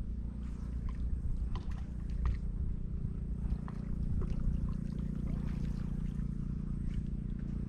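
A motor running steadily, heard as a low even drone, with faint scattered ticks over it.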